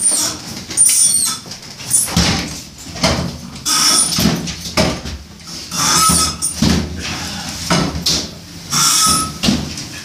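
Appliance hand truck bumping, scraping and squeaking as it is wheeled through a doorway and down stairs, in a series of knocks about once a second with short high squeaks.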